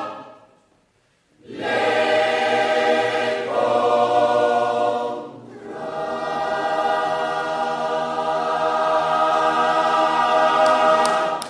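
A large choir singing a cappella. It falls silent for about a second near the start, comes back in, breaks briefly near the middle, and ends the song on a long held chord.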